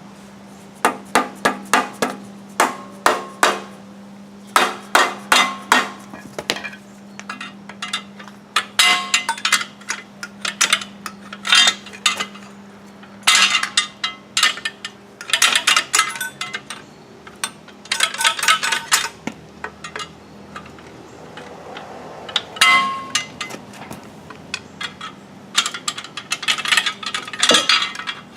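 Hammer blows on steel in quick bursts of several strikes each, with short pauses between, knocking at a stuck drivetrain part on a 2007 GMC Acadia. The part won't come free because a flex-plate-to-torque-converter bolt is still in place.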